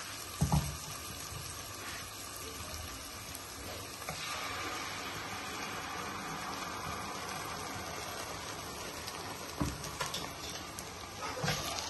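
Onion, tomato and green chilli tadka sizzling steadily in hot oil in a pan; the sizzle gets a little louder about four seconds in, as ground spinach paste is poured in. A couple of light knocks break the sizzle.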